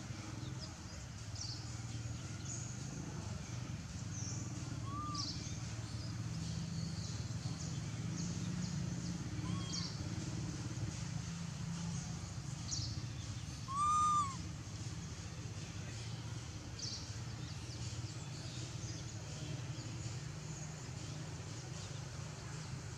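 A young long-tailed macaque giving short, arched coo calls: a faint one about five seconds in, another near ten seconds, and a loud, clear one about fourteen seconds in. Behind them is a steady low hum with faint high chirps.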